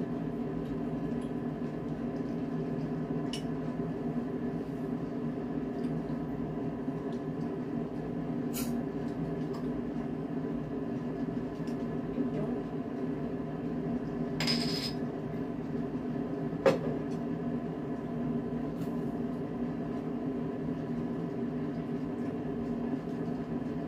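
Steady low hum in a small room, with scattered soft clicks and clinks of plates and a bottle on a dining table. There is a short hiss a little past halfway and one sharper knock a couple of seconds after it.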